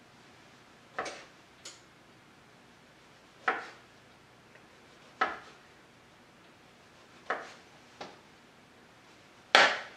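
Chef's knife slicing a pepperoni stick on a plastic cutting board, the blade knocking on the board as each slice goes through: about seven sharp knocks at uneven intervals, the last one near the end the loudest.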